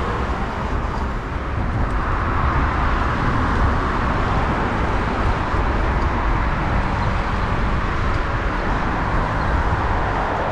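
Steady rush of road and traffic noise with wind on the microphone, heard from a moving bicycle; it grows louder about two seconds in and stays there.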